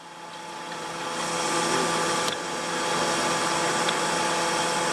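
Steady whirring hum of an electric shop fan, swelling up over the first second or so, with a faint click about two seconds in.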